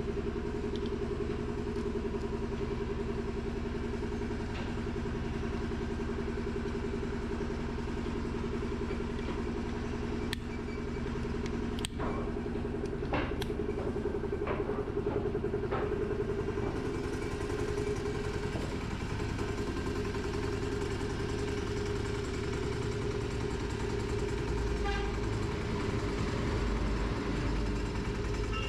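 An engine running steadily at idle. A few sharp metal clicks of a screwdriver on the cover plate come about 10 to 14 seconds in.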